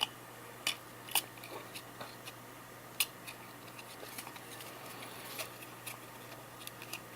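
Stuck-together trading cards being peeled apart by hand: faint rustling of card stock with a few sharp snaps, the loudest about a second in and about three seconds in.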